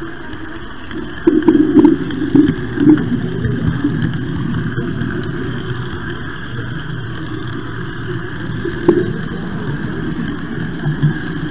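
Model train running noise heard from a camera riding on the train: a steady rumble and rattle of wheels on the track, with louder jolting rattles a little over a second in and a few sharp clicks, one near the end.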